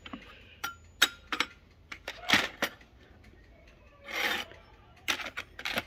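Velocette LE clutch plates being handled on a workbench: scattered light clicks and knocks of steel and friction plates against each other, with two short scraping rubs about two and four seconds in.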